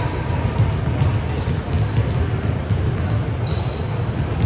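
Basketball game sound: a ball bouncing on a hardwood court, several short high squeaks of sneakers, and a steady din of the gym around them.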